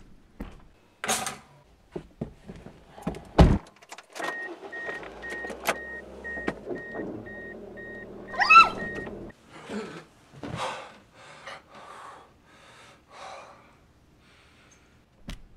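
Inside a car, a warning chime beeps rapidly, about four times a second, for about five seconds over a low engine hum. A heavy thump and scattered clicks and rustles come before it, and a brief rising squeak sounds near the end of the chime.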